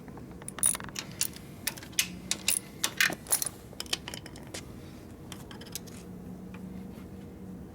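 Sharp metallic clinks and taps of hand tools and small steel transmission parts being handled, about a dozen in the first four seconds or so, then only a faint steady hum.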